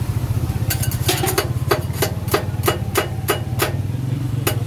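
A knife chopping on a cutting board: a quick, even run of about a dozen sharp knocks, about three a second, starting about a second in, with one more near the end. A steady low engine-like hum runs underneath.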